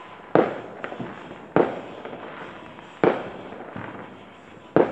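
Distant fireworks going off: four sharp bangs spaced one to two seconds apart, each trailing off in a rolling echo, with a fainter pop between the first two.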